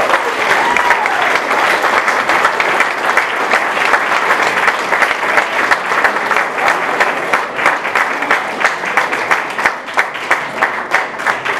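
Audience applauding an award winner: a crowd's dense clapping with a whoop about a second in. The clapping thins toward the end into distinct separate claps.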